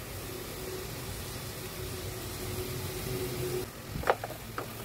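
A steady low hiss of chicken cooking in a metal pot on a gas burner. Near the end, a wooden spatula scrapes and knocks against the pot a few times as the chicken pieces are stirred.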